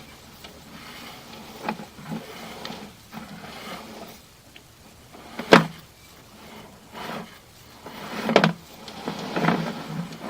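Sewer inspection camera's push cable being fed up a drain line: scattered knocks and scrapes, one sharp knock about halfway through and a couple of longer scrapes near the end.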